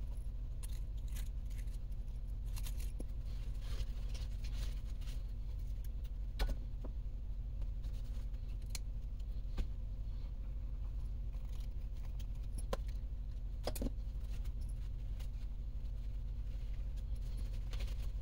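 Light clicks and clatter of plastic transmission case parts and small screws being handled and set down by hand, with a paper towel rustling as the case is wiped. Under it runs a steady low hum. The sharpest clicks come about six and a half seconds in and again near fourteen seconds.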